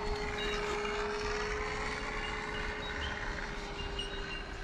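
FMS F4U Corsair 1700 mm RC model plane in flight, giving a steady drone with one held tone.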